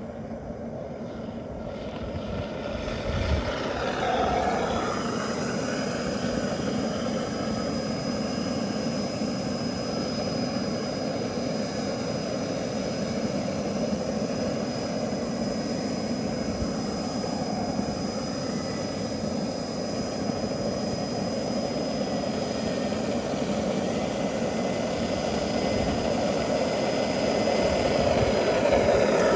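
Twin-propeller electric RC model OV-10 Bronco running on the ground, its turboprop sound module playing a steady turbine whine over the propeller noise. It grows louder about three seconds in and again near the end as the plane comes closer.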